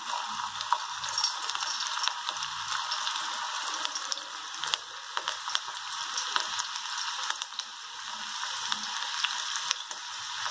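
Hot oil sizzling and crackling as handfuls of besan-battered okra are dropped into a kadai for deep-frying: a steady hiss with many sharp pops throughout.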